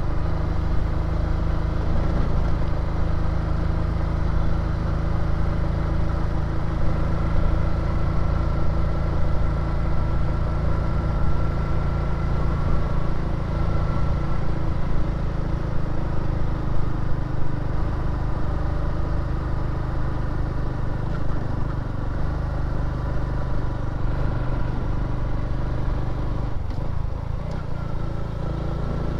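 Motorbike engine running steadily under load while climbing a long, steep uphill grade, with a constant low rumble.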